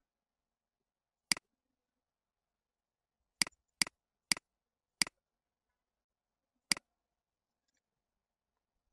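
Computer mouse button clicking six times, each a sharp click with a softer release right after. The first comes about a second in, four follow in quick succession about two seconds later, and the last comes near the end.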